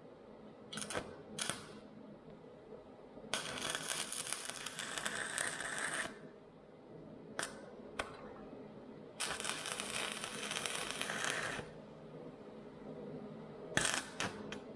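Stick welder's arc crackling and hissing on steel in short runs: two runs of two to three seconds each, with brief arc strikes before, between and near the end.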